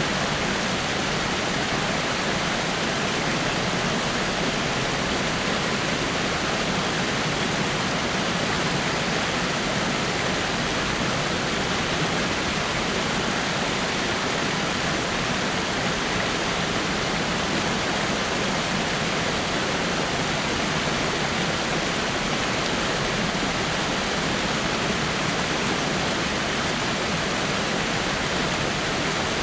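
Small waterfall splashing over rocks: a steady, even rush of falling water with no change.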